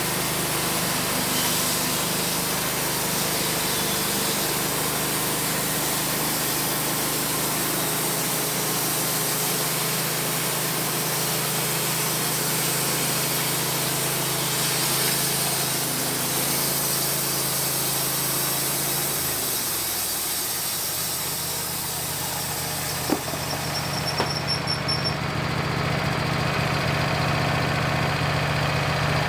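An engine running steadily. About twenty seconds in its pitch drops and the sound changes, and a single sharp knock comes a few seconds later before it settles into a new steady run.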